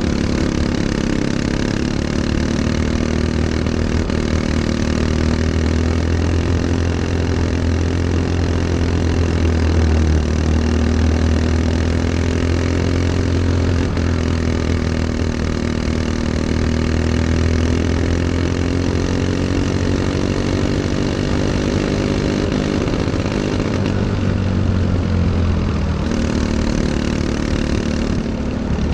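Racing kart's small engine running steadily at speed, heard up close on board, its pitch rising and falling gently as the kart laps.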